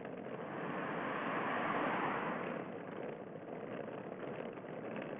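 Steady rushing noise, swelling to its loudest about two seconds in and then easing back.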